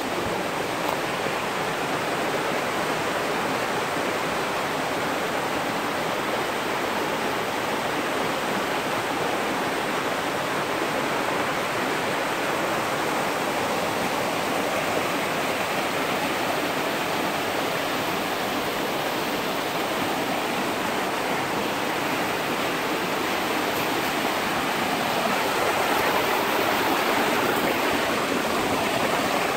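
A rocky mountain stream rushing steadily over boulders in small cascades and falls, a little louder near the end.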